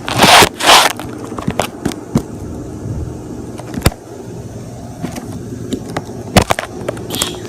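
A big mass of thick slime being poured out in a heavy drizzle, with two loud rushing noises in the first second and then scattered wet pops and clicks as it falls and folds.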